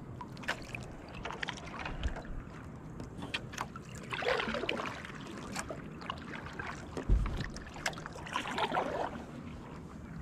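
Kayak paddle strokes in the water: two splashy swooshes about four seconds apart, among scattered light clicks and knocks of the paddle and gear, with one dull thump shortly after the middle.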